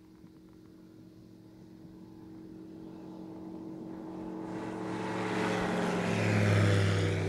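Evektor light sport aircraft's Rotax 912 engine and propeller at full power on its takeoff run. A steady engine note grows louder as the plane approaches and lifts off, and is loudest near the end.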